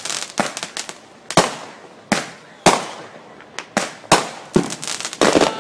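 Fireworks going off: a dozen or so sharp bangs at irregular intervals, each dying away quickly, with a rapid crackling cluster near the end.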